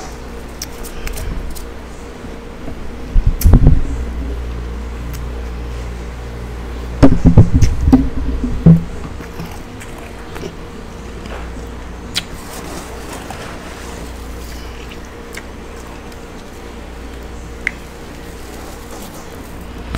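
Freezer frost being chewed and crunched close to the microphone, in two loud bursts about three and seven seconds in, with a few small clicks later. A steady low hum lies underneath.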